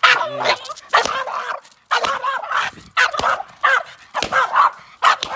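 Boston terrier barking and yipping over and over in short high-pitched calls, about one or two a second, worked up by a car-wash brush and floor mat being waved at it.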